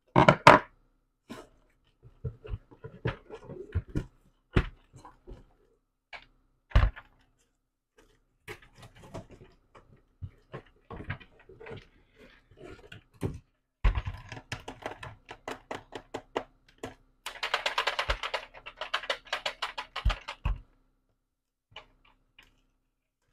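A cardboard shipping box being opened and handled by hand: flaps folding and scraping, with scattered knocks and a few louder thumps. About two-thirds of the way in, there are a few seconds of dense crinkling from the packaging.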